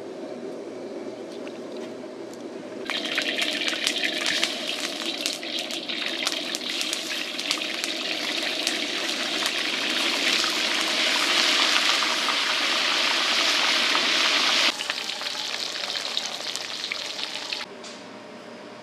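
Eel steaks frying in hot oil in a wok: a loud sizzle full of small pops starts about three seconds in and drops away sharply near the end, over a steady low hum.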